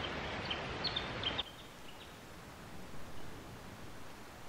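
Several short, high bird chirps over a steady hiss in the first second and a half; then the hiss drops away suddenly, leaving a quieter background.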